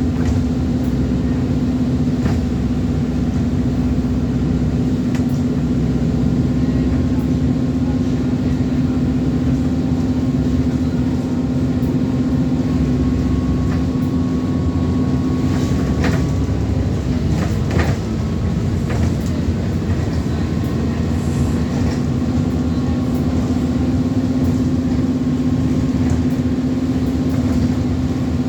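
Alexander Dennis Enviro400 double-decker bus on a Trident chassis running under way, with a steady loud whine of the kind bus enthusiasts call the 'hoover' noise. The whine falters briefly about seventeen seconds in, then settles back to the same steady pitch.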